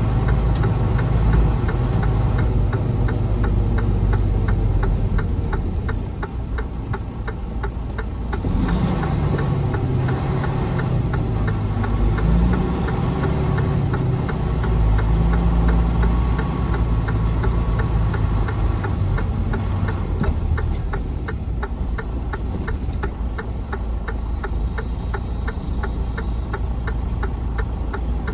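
Semi truck's diesel engine running, heard inside the cab, its pitch rising a few times in the middle as it accelerates through the gears, with a steady rapid ticking like a turn-signal flasher over it.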